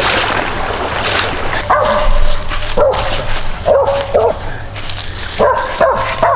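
Hunting dog barking repeatedly in short, high yelps, starting a little under two seconds in.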